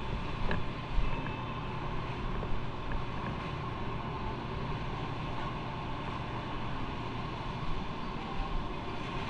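Motorcycle engine running steadily while riding, with road noise and wind buffeting on the microphone.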